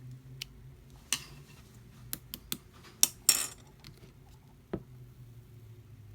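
Slime being played with: a string of sharp pops and clicks, the loudest about three seconds in, then a duller knock near the end.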